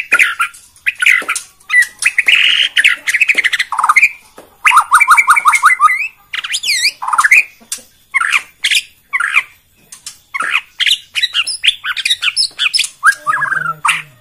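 A caged Borneo white-rumped shama (murai batu) singing loud, varied song phrases one after another: fast runs of repeated notes, clear rising and falling whistles, and harsh chattering notes.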